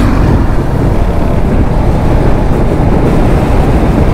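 Steady wind rush and running noise from a Royal Enfield Hunter 350 motorcycle cruising at expressway speed, heard from the moving bike.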